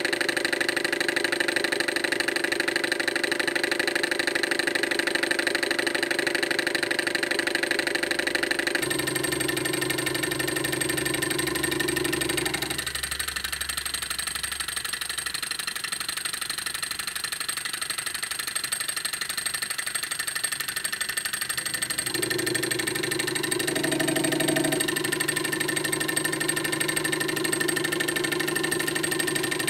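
Homemade two-syringe Stirling engine running fast, around 750 rpm: a steady, rapid mechanical whirr from its glass-syringe pistons, connecting rods and flywheel, whose tone shifts a few times.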